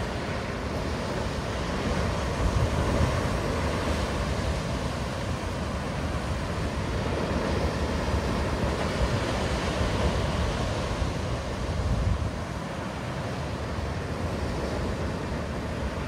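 Sea waves breaking and washing ashore: a steady wash of surf noise with a deep rumble, swelling and easing, and dropping back noticeably about twelve seconds in.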